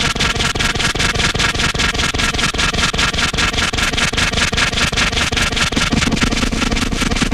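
Harsh noise music: a dense wall of distorted electronic noise pulsing rapidly and evenly, about six pulses a second. A steady low drone comes in near the end.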